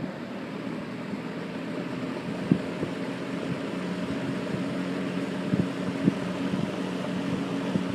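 1974 Kmart P-23 box fan running on its medium setting: a steady motor hum and blade whoosh that builds a little over the first few seconds as the fan comes up to speed. A few faint ticks are heard.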